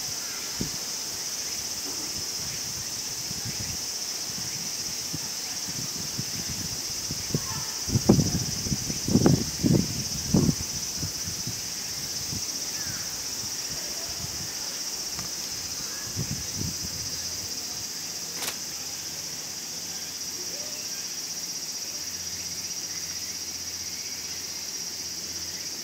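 Steady high-pitched chorus of insects droning on without a break. A few short, low, dull sounds break in about a third of the way through.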